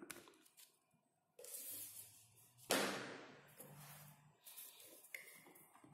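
Paper quick-installation guide rustling and crinkling as it is folded and handled, with one sharper swish about three seconds in.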